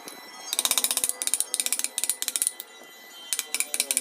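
Wood being worked by a carving tool: bursts of rapid clicking and scraping strokes, with short pauses between the bursts.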